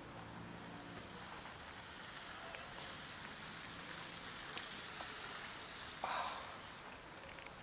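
Cats crunching dry kibble off the ground, scattered small crunches over a steady outdoor hiss, with one short louder rustle about six seconds in.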